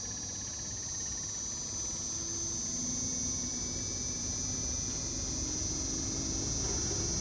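Inverter air conditioner outdoor unit running its compressor: a steady hum under a high-pitched inverter whine. About two seconds in it gets slightly louder and its hum shifts up in pitch as the compressor speeds up.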